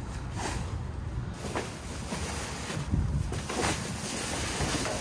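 Plastic trash bags and cardboard rustling and crinkling in short swishes as a reach-grabber pulls at them inside a dumpster, over a steady rumble of wind on the microphone.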